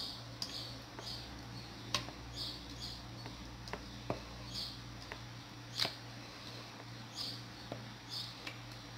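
Wet herb-and-garlic seasoning paste being scraped from a plastic bowl into a plastic jar: faint, irregular clicks, taps and small scrapes, over a steady low hum.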